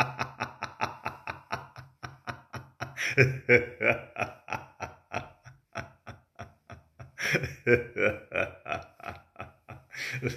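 A man laughing heartily in long runs of rapid "ha-ha" pulses, about five a second, as deliberate laughter-yoga laughter. The laughing grows louder about three seconds in and again near seven seconds.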